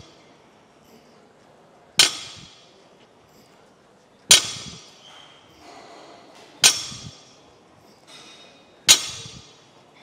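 Barbell loaded with bumper plates set down on the floor between deadlift reps: four sharp clacks with a brief metallic ring, about every two and a quarter seconds.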